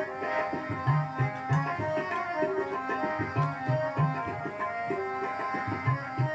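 Indian music with tabla drumming and a melody, played through the freshly serviced JVC two-channel amplifier to show that it works.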